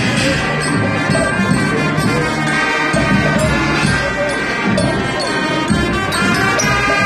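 Marching band of brass and drums playing as it parades past, sustained brass notes over a steady drumbeat.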